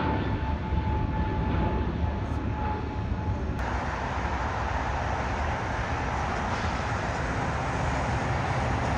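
Twin-engine jet airliner climbing out after takeoff, its engines running with a steady thin whine over broad noise. A little over three seconds in, the sound cuts abruptly to a steadier, broader rumble of jet engines on the airfield.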